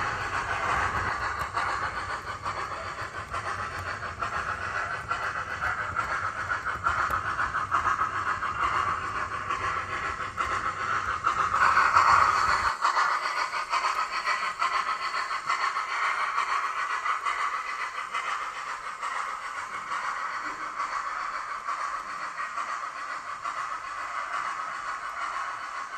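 OO gauge model A4 steam locomotive running, its onboard sound decoder playing steady steam hiss and running sounds. It is loudest about twelve seconds in, when a low rumble underneath cuts off.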